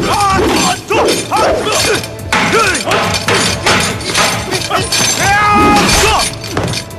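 Kung fu fight soundtrack: a rapid run of sharp staff strikes and clashes, with shouts, over music.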